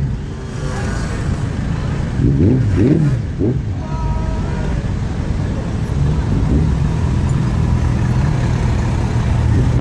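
Busy street traffic: car and lorry engines running close by, with voices and shouts from a crowd along the road.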